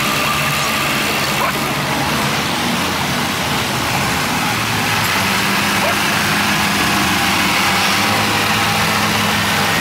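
Engines of several vintage tractors running as they drive slowly past one after another, the engine note changing about halfway through as the next tractor comes close. Crowd chatter is mixed in.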